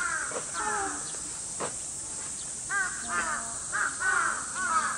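Crows cawing: repeated short, harsh calls in quick series, a few at the start, a lull, then a busy run of caws through the second half.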